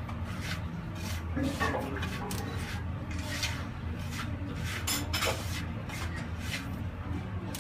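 A hand rubbing and kneading grated coconut mixed with chili and onion against the inside of a terracotta clay bowl, making repeated dry scraping strokes about once a second.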